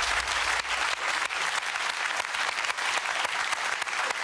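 Studio audience applauding steadily: many hands clapping at once.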